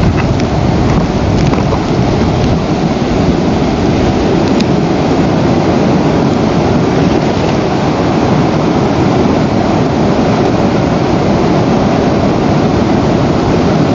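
Loud, steady rushing noise with a few faint ticks.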